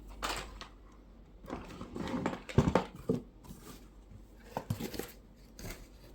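Scattered light clicks and knocks with faint rustling as boxed tool parts and plastic packaging are handled during an unboxing; the sharpest knock comes about two and a half seconds in.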